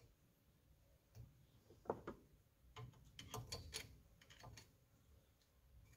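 Faint, scattered metal clicks and clinks from hand work at the flywheel nut of a JLO 292 two-stroke engine, with a quick run of clicks about halfway through.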